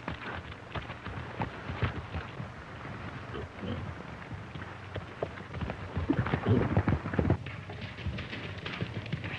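A horse's hooves striking and scuffing over dry leaves and brush, an irregular patter of knocks that grows loudest about six to seven seconds in as the horse breaks into a run.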